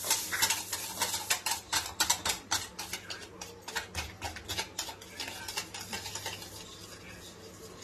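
Wire whisk clicking against the side of a steel bowl while cake batter is beaten, several quick clicks a second that thin out and fade over the last couple of seconds. A low steady hum runs underneath.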